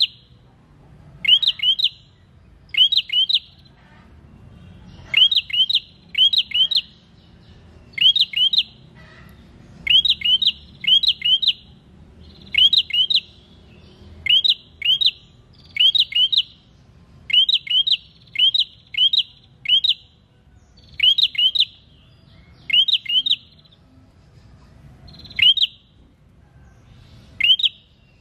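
Caged prenjak singing: short, sharp rising chirps, mostly in quick twos and threes, repeated about once a second with a couple of brief pauses.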